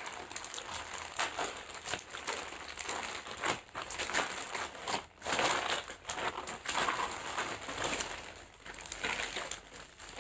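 Plastic courier mailer bag crinkling and rustling in irregular bursts as hands grip, twist and pull at it to open it.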